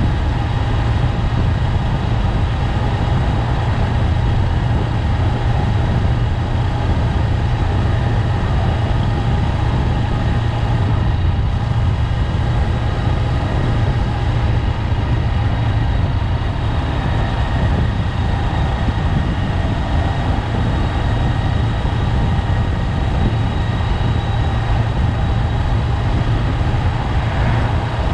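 Honda 400X's parallel-twin engine running at a steady pace while riding, its low engine note even throughout, under a steady rush of road noise.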